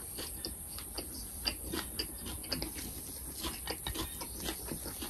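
A person chewing a mouthful of sticky rice and chili paste: a run of small, irregular wet clicks and smacks of the mouth.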